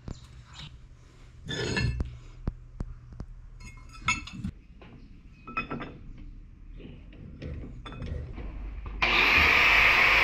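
Steel plates and a metal square clinking and scraping on a steel workbench as they are handled and clamped in a bench vise. About nine seconds in, an angle grinder starts and runs loud and steady against the steel plate held in the vise.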